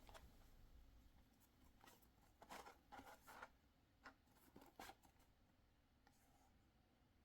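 Faint rustling and scraping as the packaging of a Pokémon card booster bundle is handled: a few brief, soft scuffs in two clusters, partway through and again near the middle.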